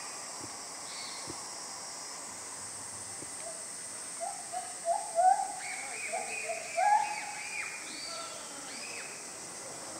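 A steady high insect drone, and about halfway through a quick run of short high-pitched calls, some rising and some falling, which are the loudest thing heard.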